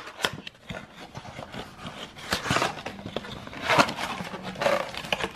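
Cardboard trading-card blaster box being opened by hand: scraping and rustling of the cardboard and the card packs inside, in a few short bursts among small clicks.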